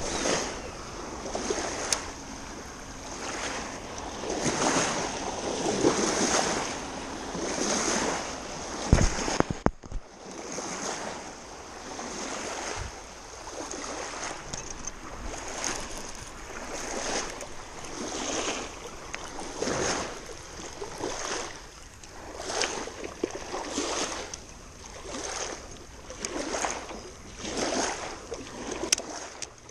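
Small waves lapping against a muddy lake bank in repeated washes about once a second, with wind on the microphone. A few sharp knocks about nine seconds in.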